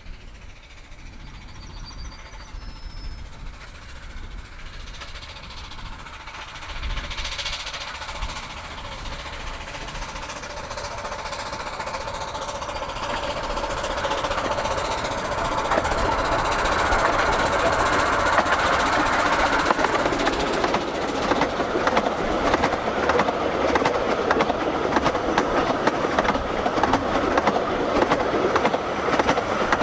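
A 15-inch narrow-gauge steam locomotive approaching with a train of coaches, growing steadily louder over the first twenty seconds, then the coaches rolling past close by with their wheels clattering over the rails.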